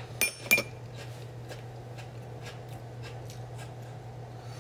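A steel spoon clinks twice against tableware, each strike ringing briefly. Faint handling and rustling sounds follow over a steady low hum.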